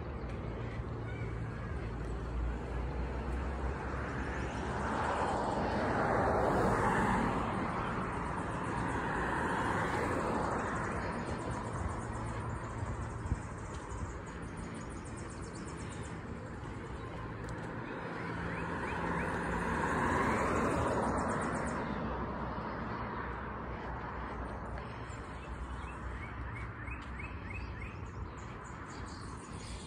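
Cars passing one at a time on the street, the sound of each swelling and fading away, over a steady low traffic rumble. The loudest passes come about a fifth of the way in, again about a third of the way in, and about two thirds of the way in.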